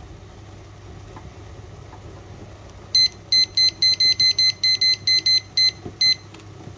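Digital kitchen timer beeping at each press of its minute button: a quick run of about a dozen short high beeps, roughly four a second, as it is set to 12 minutes.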